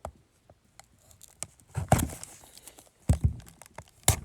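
Sealed trading-card boxes being handled: plastic wrap crinkling and tearing, with scattered clicks and a few louder knocks.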